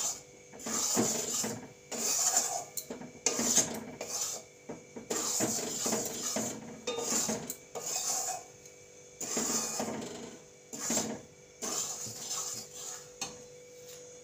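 Steel spatula scraping and stirring dry rice flour around a metal kadai as the flour dry-roasts, a rasping scrape repeated about once a second.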